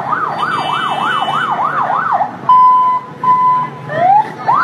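Electronic siren cycling through its tones. It warbles fast up and down, about three times a second, then breaks a little past halfway into two loud steady beeps and a quick rising whoop before the fast warble starts again.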